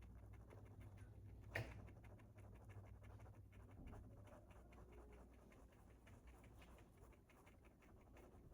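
Near silence: a low steady hum with many faint scattered ticks and scratches, and one sharper click about a second and a half in.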